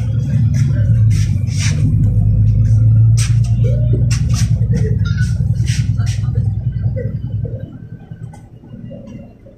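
Cummins ISBe six-cylinder diesel engine of a NefAZ 5299 city bus running under way, heard from inside the passenger cabin as a steady low rumble. The rumble drops away about seven and a half seconds in.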